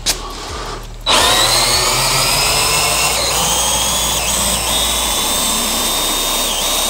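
Power drill turning a scissor jack's screw to lift the front of a car body. A short click comes at the start. About a second in, the motor starts and runs steadily with a whine that rises slightly as it spins up, dipping briefly a few times under load.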